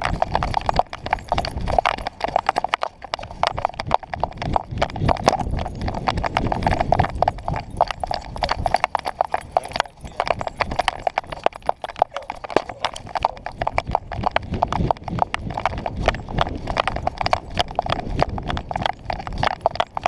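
Rapid, uneven knocking and rattling from a camera strapped to a dog's back, jolted with every step as the dog moves about.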